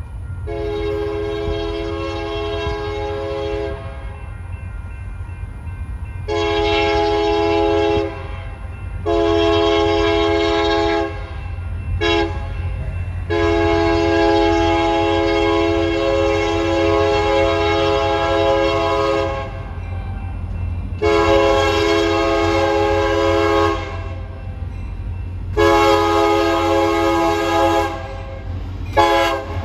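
Union Pacific SD70M diesel locomotive sounding its Nathan K3HA three-chime air horn for grade crossings, in a long-long-short-long pattern with the last blast held about six seconds. A second series of blasts starts after that, over the low rumble of the approaching train.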